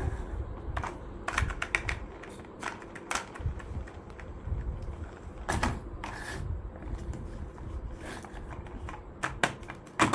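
Irregular small clicks and knocks of hard little parts being handled or knocking together, some in quick clusters, over a low rumble.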